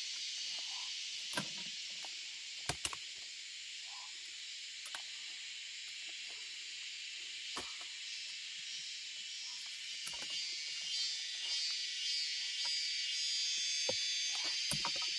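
Steady high insect chorus, swelling a little louder over the last few seconds, with scattered clicks and knocks, two sharp ones close together about three seconds in.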